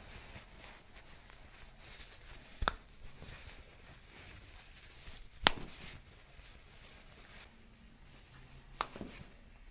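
Three sharp clicks about three seconds apart, over faint rustling, during hands-on chiropractic work.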